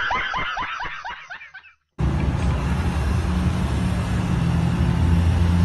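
A man's loud meme laugh, a quick run of rising cackles that fades out in under two seconds. Then a hard cut to a steady low hum and hiss of background noise.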